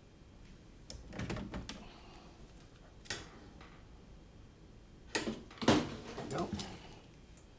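Knocks, clicks and rustling of small objects being handled, in a short cluster about a second in, a lone click near three seconds, and a louder cluster from about five to six and a half seconds, whose sharpest knock is the loudest sound.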